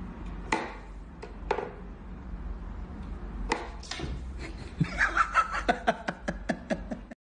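Sharp wooden knocks from a whack-a-mole cat toy as its pegs are pushed and the toy mice pop up through the holes, a few separate knocks. About five seconds in, a quick run of short laughter, about four bursts a second, is the loudest part.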